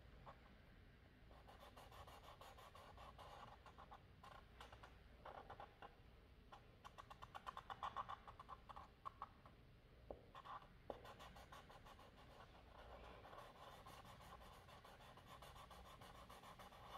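Faint scratching of a felt-tip marker colouring on paper in quick back-and-forth strokes, busiest about halfway through.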